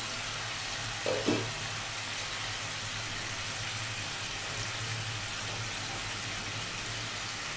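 Tilapia in mustard-paste gravy sizzling steadily in an open pan on a gas stove, with two brief knocks about a second in.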